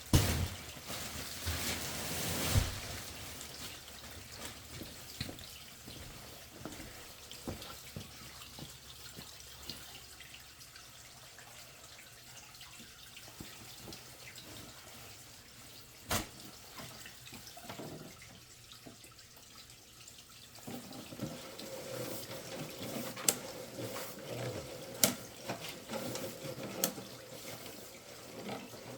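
Water running and trickling through a house drain line, with a few sharp knocks, a faint steady hum coming in about two-thirds of the way through, and a cluster of clicks near the end.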